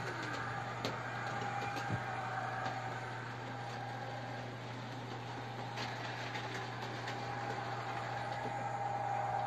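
OO gauge model trains running on a DCC layout: a steady electric motor hum and whine with wheels rolling on the track, and a few light clicks.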